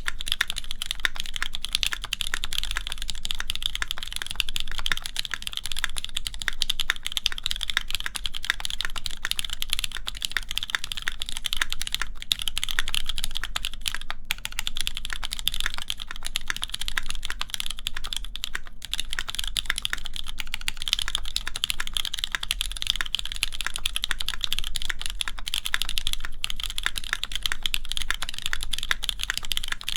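Continuous fast typing on a Keycult No. 2 mechanical keyboard with lubed Cherry MX Black linear switches, GMK keycaps on an aluminum plate, with a couple of brief pauses midway.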